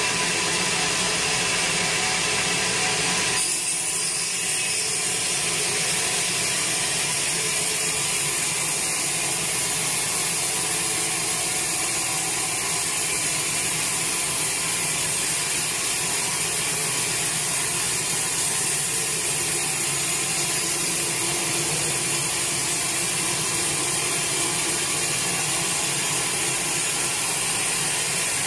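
Band sawmill blade sawing through a large teak log, a loud steady rasping hiss that holds through the cut; its tone shifts about three and a half seconds in.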